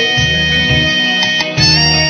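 Instrumental background music: held melody notes over a low bass note that repeats about every second and a half.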